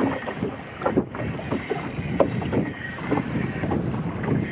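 Wind buffeting the microphone and choppy water slapping against a small boat's hull at anchor, in irregular gusts and knocks.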